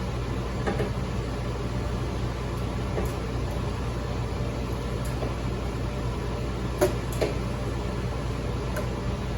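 Steady low machine hum of running equipment, with a few light clicks and taps from small 2 amp fuses being handled and checked, the sharpest pair about seven seconds in.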